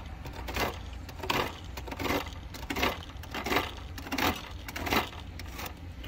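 Malco fin straightening tool raked down through a condenser coil's bent fins in about seven even strokes, a little under a second apart, each a short rasping scrape: the comb is straightening smashed coil fins.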